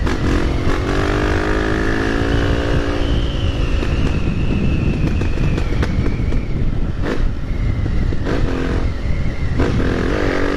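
Honda XR250 Tornado's single-cylinder four-stroke engine through a Belparts aftermarket exhaust, accelerating hard with its pitch climbing over the first few seconds, then easing off, and climbing again near the end. A steady low rush of wind runs underneath.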